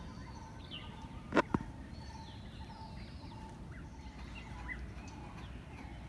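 Small birds chirping and twittering, with a faint steady hum underneath. About a second and a half in comes a sharp double knock, much the loudest sound.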